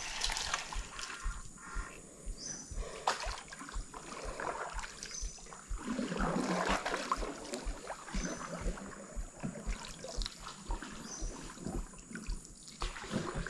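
Water splashing and trickling around a small wooden log canoe on a narrow stream, with frequent soft low knocks and a louder spell of splashing about halfway through.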